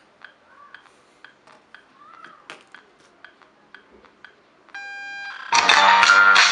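Music starts loudly from a speaker driven by a homemade 12 V Bluetooth amplifier with Toshiba 2SC5200 output transistors, about five and a half seconds in: the amplifier's first music test. Before it come faint scattered clicks and, just before the music, a short steady tone.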